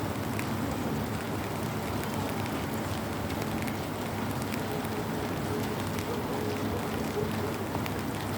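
Light rain tapping on an umbrella canopy overhead, steady throughout with faint individual drop ticks.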